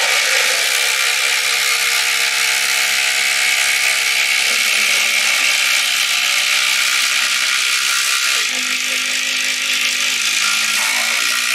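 Two cordless impact drivers, a RYOBI and a HART, hammering side by side as they drive long screws down into a wooden beam, a loud, steady rattling from both tools at once.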